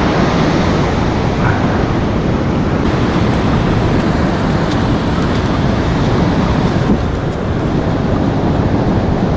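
Ocean surf and wind buffeting the microphone: a steady, loud rushing rumble with slight swells.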